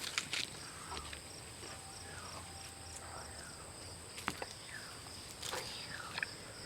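Faint outdoor ambience: a steady high-pitched insect drone, with a few scattered soft clicks.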